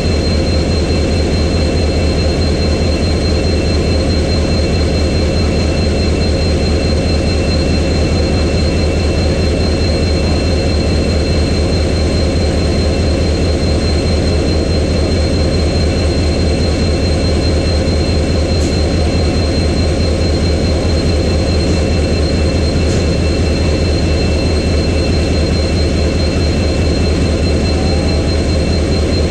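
WDP-4B diesel locomotive's EMD 16-710 two-stroke V16 engine idling with a steady deep hum, a thin high whine running over it.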